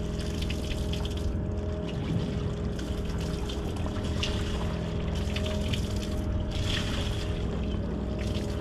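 Water trickling and lapping at a boat's hull over a steady machine hum, with a few brief splashy hisses.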